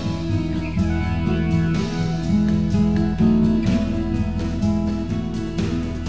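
Soundtrack music led by a strummed acoustic guitar, keeping a steady rhythm over held notes.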